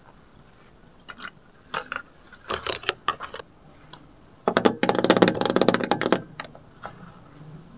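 Plastic toy kitchen pieces handled and set down: a few separate clicks and knocks, then, about four and a half seconds in, a loud second and a half of rapid plastic clattering as a small toy cooktop is handled.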